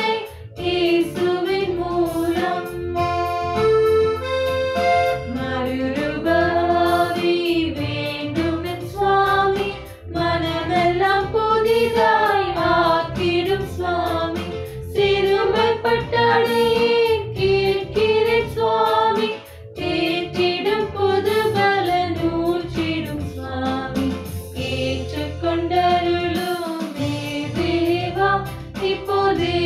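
Voices singing a Tamil Christian hymn (keerthanai) in long, flowing phrases, with instrumental accompaniment.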